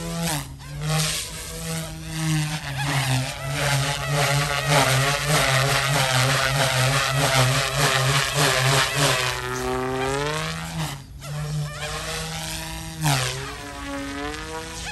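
YXZNRC F280 RC helicopter flying, its brushless direct-drive motors and rotors buzzing with a pitch that rises and falls as the throttle changes. The sound is busiest and loudest in the middle, with a brief dip about eleven seconds in.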